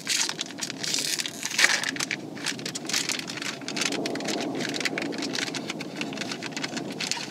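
Crinkling and crackling of a plastic wrapper being opened and handled, as a flameless cooker's chemical heater pouch is unwrapped, over a steady low rushing noise.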